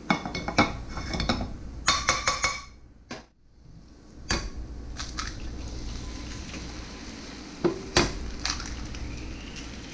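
A metal spatula clinking and scraping against a frying pan, with short ringing clanks, for the first two or three seconds. Then eggs are cracked on the pan's edge, sharp cracks about four seconds in and again near eight seconds, over a faint steady sizzle of oil in the pan.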